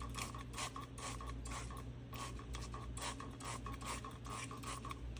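A utensil scraping and stirring pizza rolls around a frying pan: a run of short, irregular scrapes, two to three a second.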